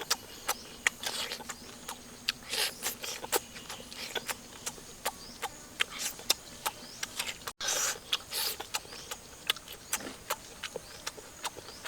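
Close-up eating sounds: wet chewing with irregular sharp lip smacks, clicks and short crunchy bursts.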